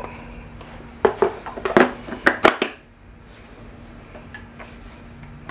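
A quick run of sharp plastic clicks and knocks, lasting under two seconds, from hands working the battery into a cordless electric chainsaw; the saw's motor does not run.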